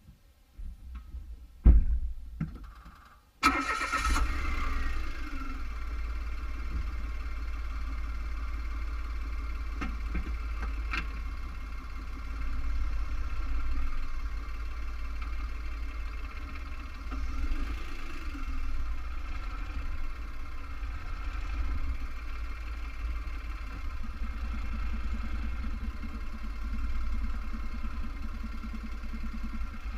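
2015 Mitsubishi Mirage's 1.2-litre three-cylinder engine started from cold-quiet: a few clicks and a knock, then the engine catches about three and a half seconds in with a brief falling whine and settles into a steady idle.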